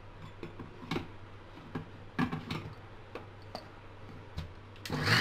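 Steel mixer-grinder jar and its plastic lid being handled and fitted onto the base: a few light clicks and knocks. Near the end the mixer grinder's motor starts up, grinding boiled spinach.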